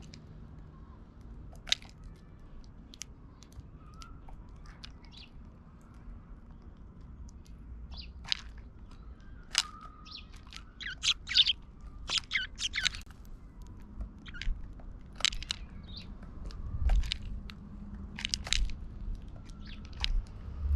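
Eurasian tree sparrows pecking at mixed seed in a wooden feeder tray: sharp taps and cracks of beaks on seed and wood, sparse at first and coming thick and fast from about halfway, with a few short chirps.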